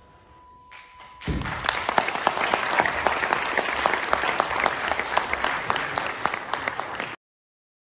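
Theatre audience applauding, a dense clatter of many hands clapping that starts about a second in and cuts off suddenly near the end.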